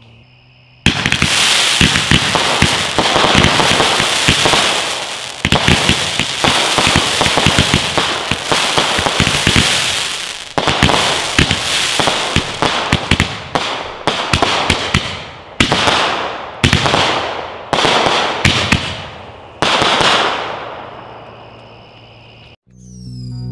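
A rack of Magnus 5-ball Roman candles firing together, shot after shot, with dense crackling from the crackle comets. The crackling swells with each volley and fades between them, then cuts off shortly before the end.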